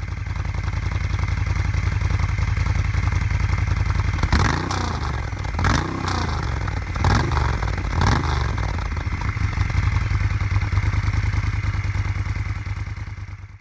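Moto Guzzi V-twin motorcycle engine idling with a steady pulsing beat, the throttle blipped four times between about four and eight seconds in. It cuts off suddenly near the end.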